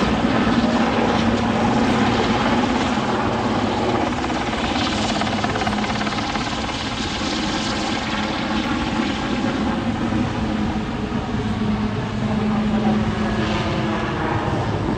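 Super Puma/Cougar twin-turbine military helicopter flying a display, its main rotor and turbines running loud and steady, with the tone shifting in pitch in the second half.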